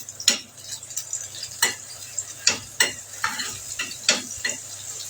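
Garlic frying in hot ghee, a faint steady sizzle, with a spoon stirring it and clicking against the pan at irregular moments. The ghee-and-garlic fry (taqliya) is the stage just before it turns golden.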